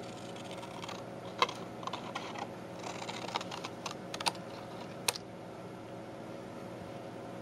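Scissors cutting thick paper paint-sample cards: a run of sharp, crisp snips and clicks from about a second and a half in until about five seconds in, over a steady low background hum.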